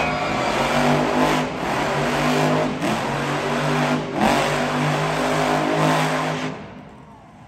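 Monster truck engine revving hard as the truck drives and turns through arena dirt. The sound dips briefly three times, then cuts off near the end.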